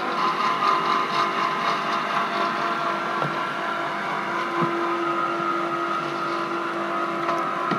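Home-built electric chopper motorcycle being ridden: a steady electric-drive whine over road noise, with a couple of brief knocks.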